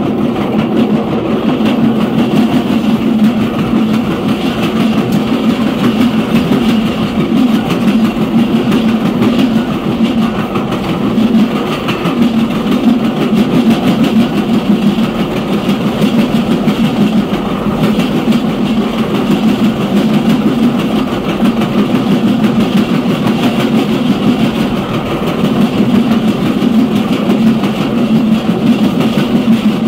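Passenger train cars rolling fast downhill, heard from the rear of the train: a continuous, even noise of steel wheels on the rails with a steady low drone underneath.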